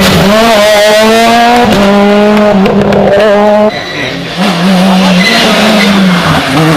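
Rally car engine at high revs, climbing through the gears with short breaks at each shift; it lifts off abruptly about four seconds in, then picks up again.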